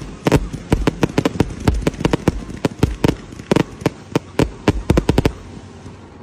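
Fireworks going off as a rapid, irregular string of sharp bangs, several a second, stopping about five seconds in.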